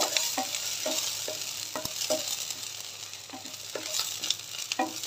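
Minced leek sizzling in a little hot oil while it is fried until fragrant. A wooden spatula scrapes and stirs it around a nonstick pan about twice a second.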